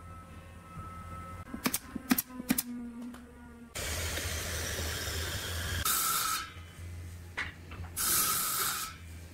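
A few sharp knocks on wood about two seconds in, then a steady hiss of compressed air over a low hum, with two louder blasts of air about six and eight seconds in.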